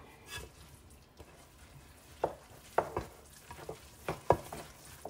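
Wooden spoon stirring a thick, creamy rice mixture in an enamel mixing bowl, faint and wet, with a few light knocks of the spoon against the bowl in the second half.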